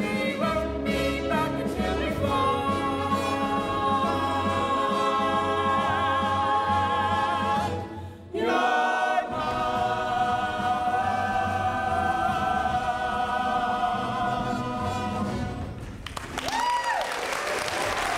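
A cast of voices singing together with accompaniment, holding long notes in the big finish of a musical-theatre number, with a brief break about 8 seconds in. The song ends about 16 seconds in and audience applause starts.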